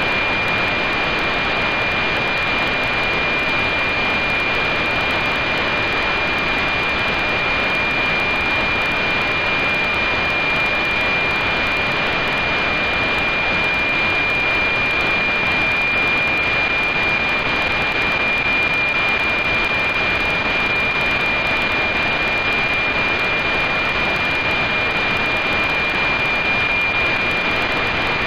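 NOAA-19 weather satellite APT downlink heard through a radio receiver: steady static hiss with a thin, steady high whistle running through it, the satellite's image subcarrier.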